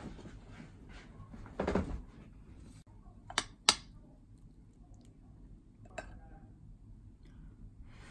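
Metal cutlery on ceramic tableware as a spoon scoops curry and rice from a bowl: a dull knock about two seconds in, two sharp clinks close together around the middle, and a lighter clink a couple of seconds later.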